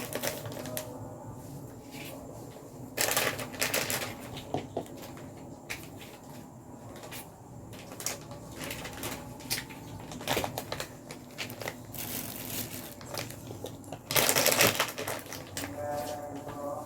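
Kitchen work sounds: irregular clicking and clattering, with louder rustling, scraping bursts about three seconds in and again about fourteen seconds in.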